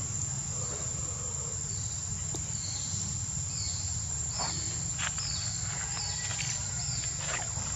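Steady high-pitched insect drone, with a run of short falling chirps about once a second, over a low rumble.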